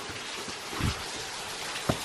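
Steady splashing hiss of falling water from a waterfall onto rock, with two dull thumps, one a little under a second in and one near the end, from the climber's steps or hands on the boulders.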